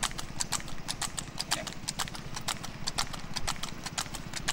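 Water buffalo bull's hooves clopping on asphalt at a brisk trot, several sharp clops a second, as it pulls a cart. A steady low rumble of the cart's wheels on the road runs beneath.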